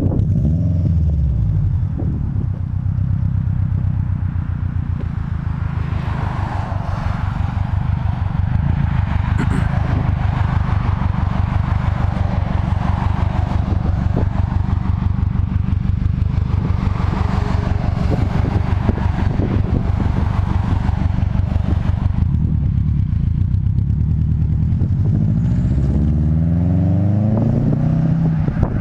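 2005 Subaru WRX's turbocharged flat-four running through an aftermarket SR*S catback exhaust. The exhaust note holds mostly steady, with a drop in pitch just after the start and a rising rev near the end.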